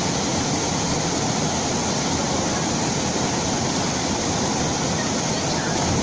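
Waterfall's falling water rushing in a steady, unbroken wash of noise.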